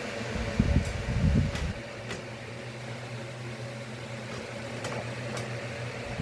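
A steady mechanical hum like a fan, with dull handling bumps in the first two seconds and a few light clicks of hard parts being handled, as PC components are fitted.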